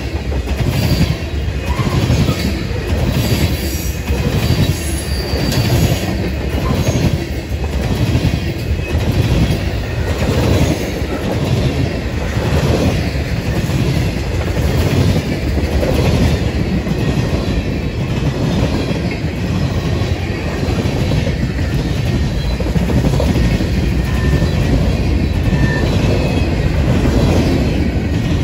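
Freight train of tank cars rolling past close by: a steady rumble with regular clicking of the wheel sets over rail joints and a little wheel squeal in the first few seconds. The last car passes near the end.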